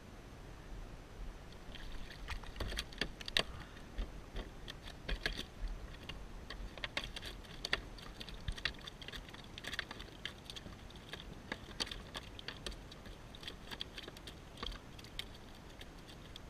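A landed trout thrashing on a plastic kayak deck: a long run of quick, irregular taps and clatters.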